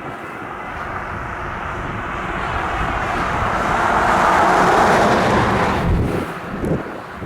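A vehicle passing by close: a rushing noise that builds, peaks about four to five seconds in and falls away about six seconds in.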